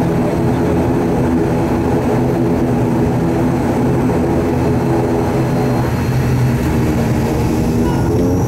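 ATR 72-500's Pratt & Whitney PW127 turboprop engines and propellers droning steadily, heard from inside the cabin; near the end the pitch starts to rise as power comes up for the takeoff.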